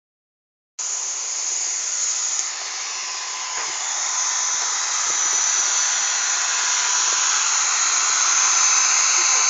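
A power tool running steadily with a continuous whir, growing slowly louder.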